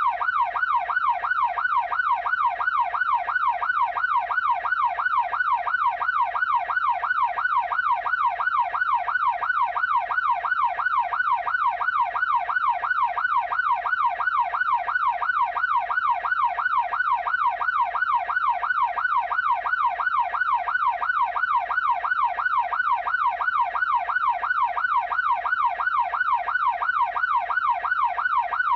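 Ambulance siren in its fast yelp mode: one tone sweeping quickly up and down, about two and a half times a second, at an even pitch and level throughout.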